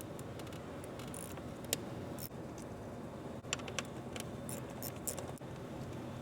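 Scattered light metallic clinks and clicks of hand tools working on the engine's ignition coils, irregular rather than an even ratchet rhythm, over a steady low background noise.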